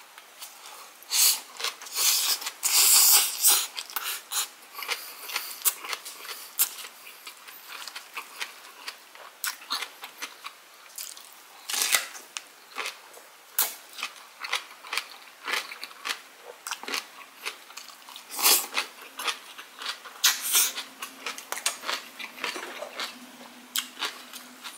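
Close-miked chewing of a cabbage-kimchi wrap of white rice and Spam, with many sharp crisp crunches. The loudest clusters of crunching come in the first few seconds, about halfway through and about three quarters of the way in.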